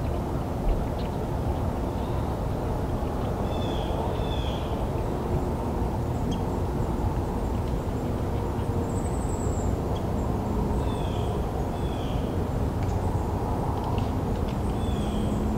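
Woodland ambience: a steady low rumble with small birds chirping a few times in short paired calls, and one thin high call about nine seconds in.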